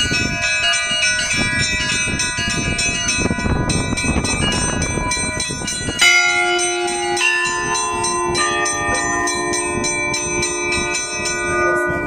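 Church bells in a belfry, rung by hand: a run of smaller bells struck again and again, their tones overlapping, with a heavier, lower bell struck about six seconds in and ringing on.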